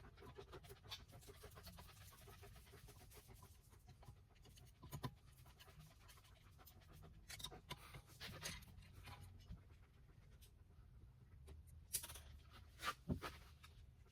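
Near silence: room tone with a few faint, scattered clicks and scratches.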